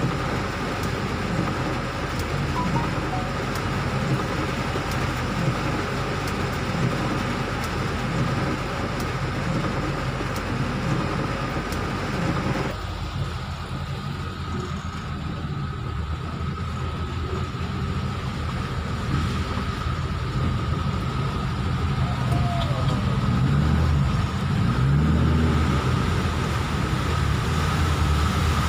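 Car cabin noise while driving on a rain-soaked, flooded road: a steady hiss of tyres on water and rain, over the engine's low drone. The hiss drops suddenly a little under halfway through, and the engine note rises and falls near the end.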